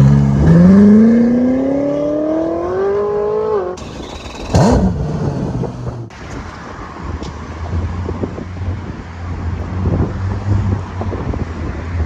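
Race car engine revving up, its pitch rising steadily for about three and a half seconds before cutting off. A short sharp rev follows about a second later, then a lower, steadier engine rumble.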